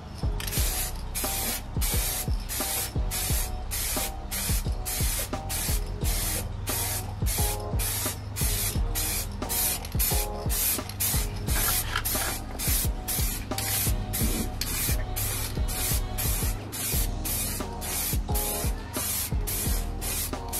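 Aerosol spray paint can hissing in short, evenly spaced bursts, about two a second, as base-coat paint is sprayed onto a car body panel.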